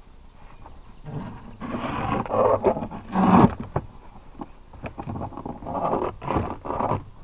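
Heavy wooden beehive boxes being handled and set in place: rough scraping and short knocks, in two louder stretches.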